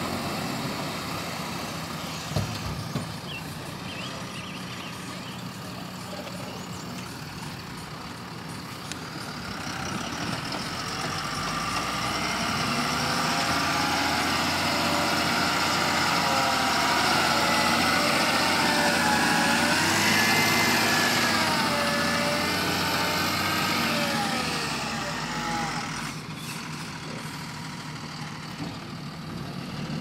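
Tata tipper dump truck's diesel engine running as the truck drives past over the dirt, growing louder towards the middle and fading again after about two-thirds of the way. Its pitch rises and falls with the throttle, with a whine riding over it.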